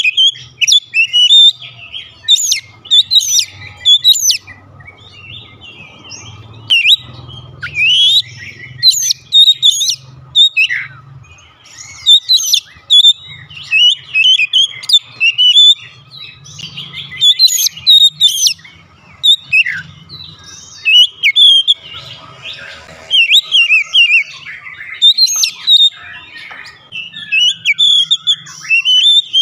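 Oriental magpie-robin (kacer) singing loudly and continuously: quick, varied phrases of whistled glides and short sharp notes, separated by brief pauses.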